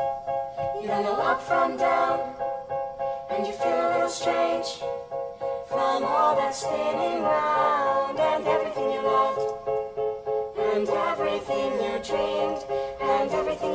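A mixed ensemble of voices sings a musical-theatre number in harmony, with long held chords. The track is sped up.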